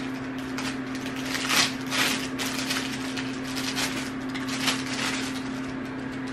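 Rustling and crackling of packaging being handled while wooden spoons are unpacked, with a few louder crackles, over a steady low hum.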